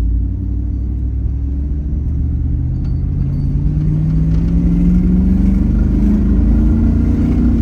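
Chevrolet Silverado's 4.8 LS V8 exhaust, fitted with a newly installed muffler not made for this truck, pulling under acceleration with a steady rise in pitch. The engine sounds alright, though it has a misfire that the owner puts down to the O2 sensors.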